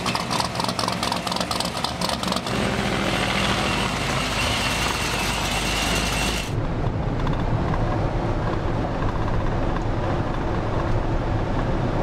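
Motor vehicle on the move: engine and road noise. There is rapid clicking in the first couple of seconds, and the sound changes abruptly twice, becoming a lower rumble about six and a half seconds in.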